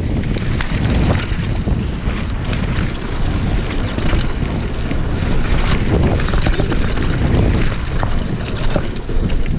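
Wind buffeting an action camera's microphone on a fast mountain-bike descent of a dirt trail, over a constant rumble of knobby tyres on dirt. Frequent short clicks and rattles come from the bike as it bounces over rough ground.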